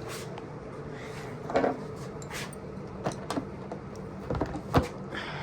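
A few scattered clunks and knocks of parts and tools being handled while fitting a dirt-bike fender, the loudest about a second and a half in and near the end, over a steady low hum.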